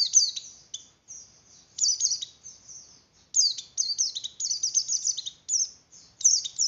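A white-eye (pleci) in breeding condition singing a fast, high twittering song in bursts of a second or so, separated by short pauses.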